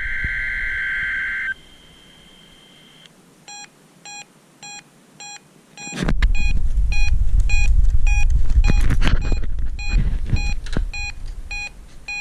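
NOAA Weather Radio SAME header, the warbling digital data burst of an EAS Required Weekly Test, ends about a second and a half in. A few seconds later an electronic alert beep starts repeating steadily, roughly every half second. From the middle on, a loud low rumble sits under the beeps.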